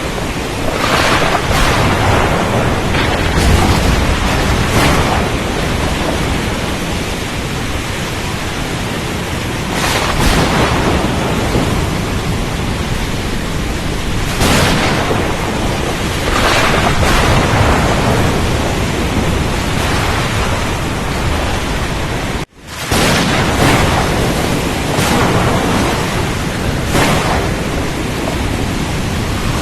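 Storm on the open sea: a steady rush of wind and water that swells every few seconds, with a momentary cut to silence about two-thirds of the way through.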